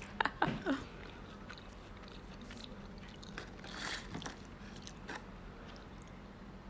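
Close-up chewing and biting of a fast-food finger stick snack, soft and intermittent, with a few small crunches.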